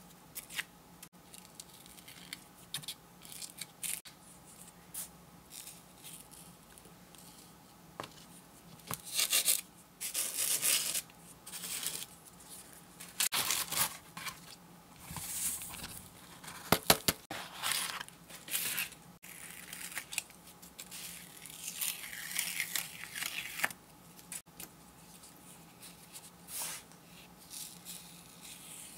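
Sticky sand-art card being handled: irregular crackly peeling and paper rustling as the backing film is worked off and the card is lifted and tipped to shed loose coloured sand, with some sand being spooned on near the end.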